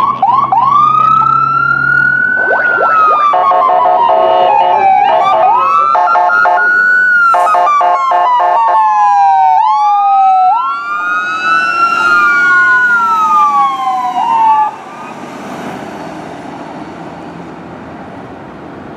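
Fire engine's Federal Q mechanical siren running Code 3, in repeated wails that wind up quickly and coast slowly down, mixed with chopped blasts of its electronic air horn through the middle. The siren winds down and stops about three-quarters of the way through, leaving road and wind noise.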